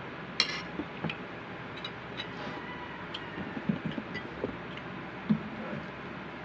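A ceramic mug set down on a table with a sharp knock about half a second in. After it come scattered small clicks and soft knocks of dishes being handled during a meal, over a steady background hiss.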